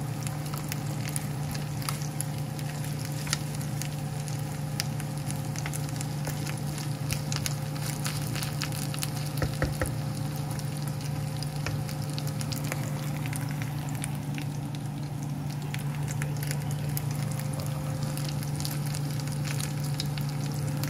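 Chicken pieces frying in their own rendered fat in a nonstick pan: a steady sizzle full of small crackles, over a steady low hum.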